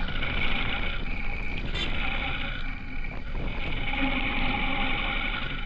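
Honda CB350 Highness motorcycle's single-cylinder engine running steadily on the move.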